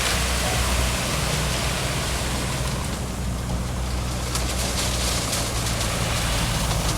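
Diesel engine of a heavy earthmoving machine running steadily under a broad rushing noise. Scattered clicks and rattles come in over the second half.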